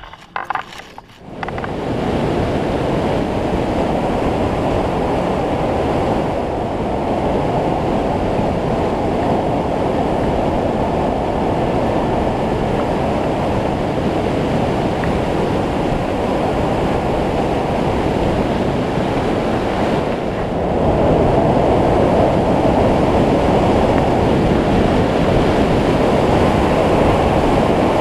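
Wind rushing over a hang glider's wing-mounted camera in flight, a steady, loud rush of air. It starts after a short quieter moment at the beginning and gets a little louder about three-quarters of the way through.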